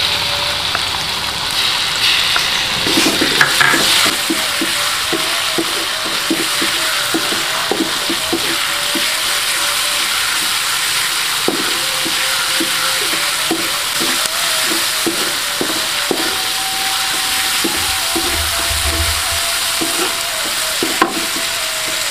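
Ground chili paste and sliced shallots frying in oil in an aluminium wok, sizzling steadily. A wooden spatula stirs and scrapes the pan in quick repeated strokes. The paste is being sautéed until fragrant.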